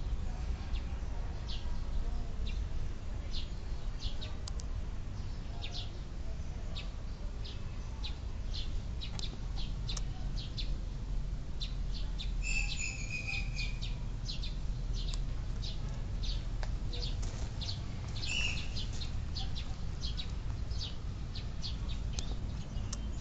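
Small birds chirping in many short, high notes, with two longer calls about halfway through and again a few seconds later, over a steady low rumble.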